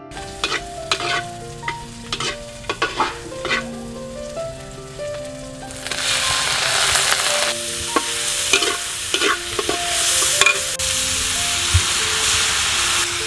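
A metal spatula clicks and scrapes against a wok as onions are stirred in hot oil. About six seconds in, loud sizzling starts as chunks of raw pork are added and stirred, and it carries on. Soft background music plays underneath.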